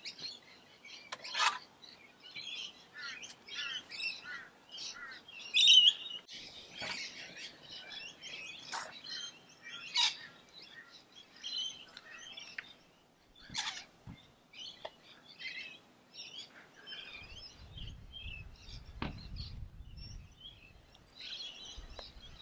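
Backyard birds chirping and calling, many short high calls one after another with a few sharper, louder ones.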